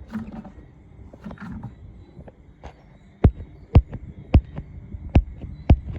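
A hand patting a frog's body, making hollow drum-like thumps: five sharp, loud thumps about half a second apart, starting about three seconds in. Two short low hums come before them.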